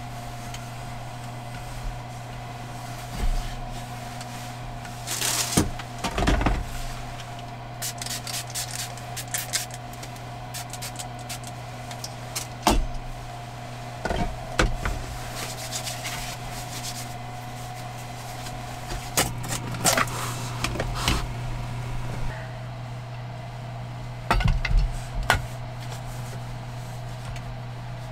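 Objects being handled and set down on a wooden table and shelf: scattered knocks, clacks and rustling, over a steady low hum.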